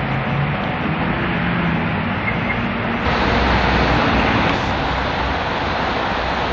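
Steady street traffic noise with an electric tram running past in the first few seconds, a faint wavering motor hum over the noise. About three seconds in the sound changes abruptly to a fuller, steady traffic noise with a low rumble.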